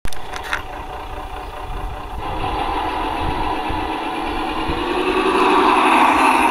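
Garden-scale model tram approaching on the track: its electric motors whirr and its wheels run on the rails, growing steadily louder toward the end. A click about half a second in.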